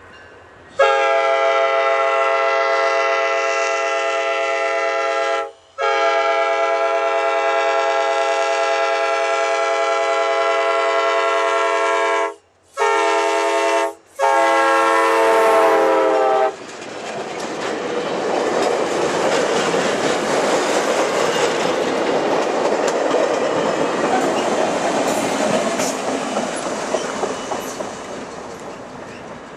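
Diesel locomotive horn sounding the grade-crossing signal, long, long, short, long, its chord dropping in pitch on the last blast as the locomotive passes. The passenger train then goes by with a rush of wheel and rail noise that slowly fades.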